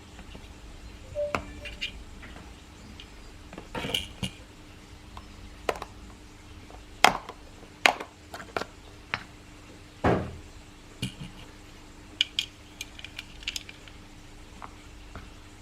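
Irregular light clicks and clacks of small hard parts being worked, as a 1:2 scale miniature M4A1/AR15 replica is handled, with a faint steady hum underneath.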